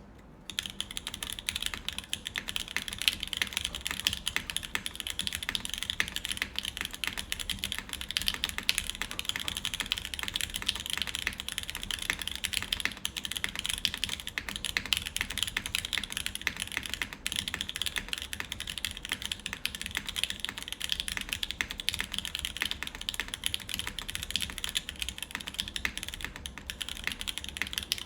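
Fast continuous typing on a custom mechanical keyboard with lubed linear Alpaca switches, aluminium plate and GMK keycaps: a dense, even stream of keystroke clacks that begins about half a second in.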